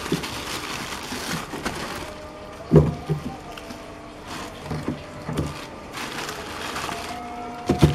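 Plastic bags crinkling and rustling as a hand shifts frozen fish in a chest freezer. Frozen fish knock against one another irregularly, loudest about three seconds in and again near the end.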